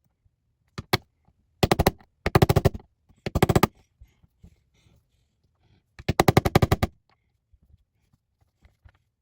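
Rapid metallic tapping in four short bursts of many quick strikes, each burst under a second. This is the ejector roll pin being driven into the AR-15 bolt.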